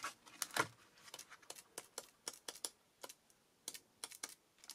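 Sheets of a pad of glossy foil craft paper being leafed through by hand: a faint run of short, crisp clicks and flicks at irregular spacing, a few a second.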